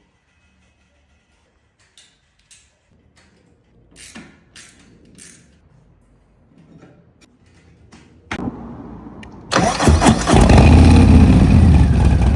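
A few faint clicks, then about eight seconds in the starter cranks a Harley-Davidson 131ci (2147cc) V-twin. About a second later the engine catches and runs loudly through a Bassani 2-into-1 megaphone exhaust.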